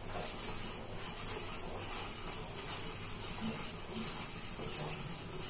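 Steel spoon stirring and scraping a steel pan of heating milk thickened with sago powder, over a steady hiss.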